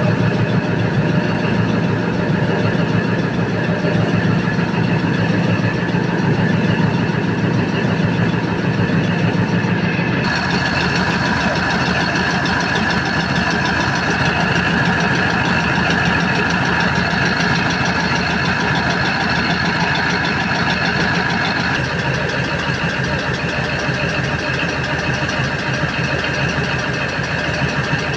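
Freshly overhauled Cummins KTA50 V16 diesel engine idling steadily on its test run. The character of the sound shifts abruptly twice, about a third of the way in and again past two thirds.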